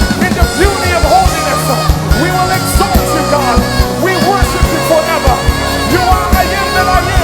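Live gospel worship music: a singer's voice swooping up and down in runs over a full band, with a steady bass, held chords and regular drum hits.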